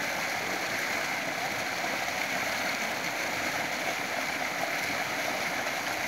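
Water gushing steadily from a deep tube well's outlet pipe, pouring onto a standing cylinder and splashing into a shallow pool.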